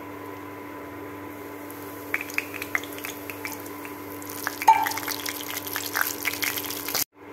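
Hot ghee crackling and sizzling in a stainless-steel pan as semolina (rava) goes in to roast. Scattered pops start about two seconds in and grow denser, with one sharper knock near the middle.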